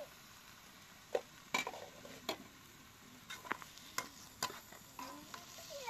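A utensil stirring food in a cooking pot, knocking sharply against the pot about seven times, over a faint steady sizzle of frying.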